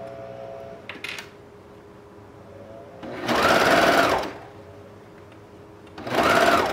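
Juki MO-1000 serger running in two short bursts of about a second each, its motor speeding up and slowing down as it stitches a seam through stretch fabric.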